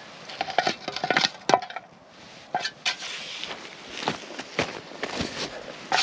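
Irregular string of sharp wooden knocks and clicks, some with a brief ringing note.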